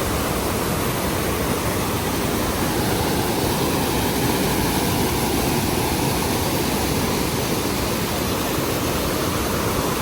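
The Rhine Falls, a large river waterfall, pouring: a loud, steady rush of water that does not change.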